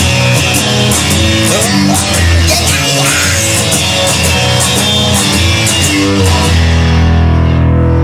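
Rock music with no singing: electric guitar over a steady drum beat. About six seconds in, the drums drop out and a low chord rings on.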